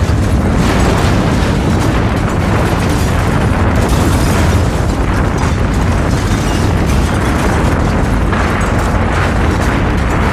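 Collapse sound effect for a skyscraper and the street around it caving in: a loud, continuous heavy rumble of crashing masonry and debris.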